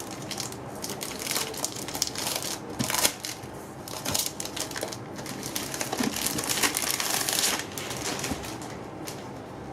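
Packaging being handled and unwrapped: irregular crinkling and rustling of wrapping, busiest for a couple of seconds in the second half.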